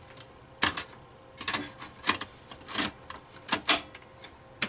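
A hard drive and its mounting bracket being handled and pushed into a desktop PC's drive bay: a series of sharp, irregular clicks and clacks, about seven in four seconds.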